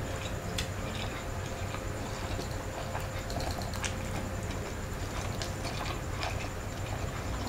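Close-miked mukbang eating sounds: chewing and wet mouth noises with scattered small clicks as food is picked up by hand, over a low steady hum.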